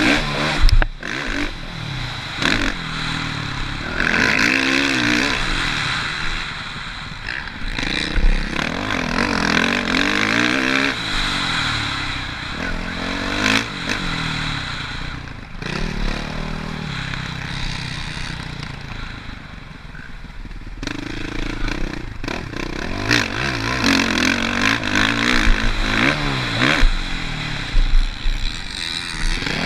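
Suzuki RM-Z450 motocross bike's single-cylinder four-stroke engine ridden hard on a track, its pitch repeatedly climbing under throttle and dropping between shifts and corners. It eases off for a few seconds past the middle, then revs up again.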